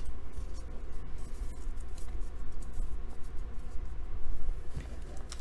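Soft rubbing and scraping of a stack of trading cards being handled and squared in the hands, over a low steady hum.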